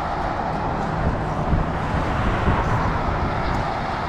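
Steady rumble of road traffic on the highway bridge alongside, mixed with wind noise on the microphone.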